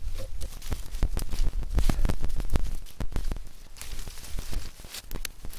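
Thin dead branches being snapped and handled over dry leaf litter: a run of sharp cracks and crackling with dull knocks and rustling leaves, densest in the first few seconds and thinning out near the end.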